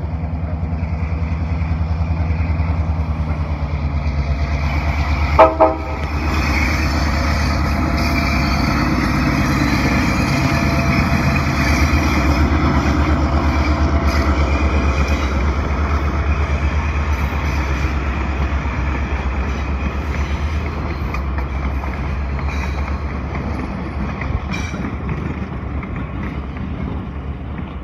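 Diesel locomotive running past close by with a steady low rumble. It gives a short double blast of its horn about five seconds in, then its passenger coaches rattle by on the rails.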